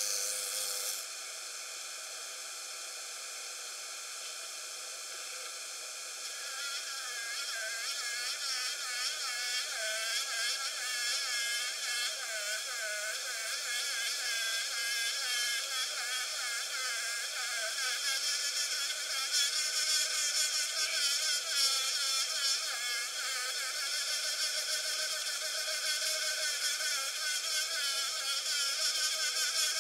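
Black-and-yellow mud dauber (Sceliphron caementarium) buzzing while perched at the opening of a mud nest cell: a high, quickly wavering buzz that starts about six seconds in and carries on without a break, a little louder in the second half.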